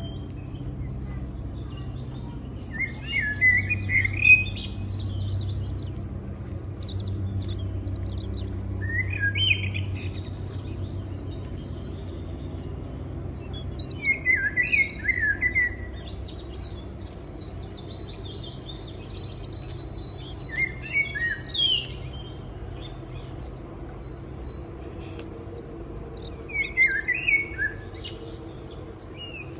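A songbird singing a short, chirpy phrase about every five to six seconds, over a low steady rumble.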